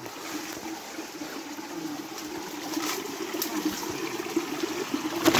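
Water trickling steadily, with one sharp knock just before the end.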